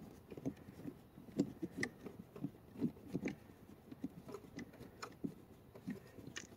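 Faint, irregular clicks and light scrapes as a T20 Torx bit on an extension is turned by hand, backing a screw out of the plastic cabin air filter cover.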